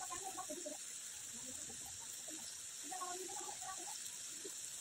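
Faint steady hiss of food cooking in sauce in a wok on the stove. Brief faint background sounds come twice, near the start and about three seconds in.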